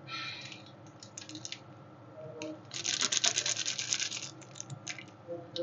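Metal spatulas scraping and chopping on a rolled-ice-cream cold plate: a few scattered strokes, then a fast run of quick strokes for about a second and a half in the middle, and a few more near the end.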